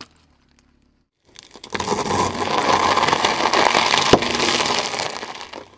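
A car tyre rolling over a block of dry instant noodles and crushing it: a dense crackling crunch that starts after a moment of silence and lasts about four seconds, with one sharper crack near the end.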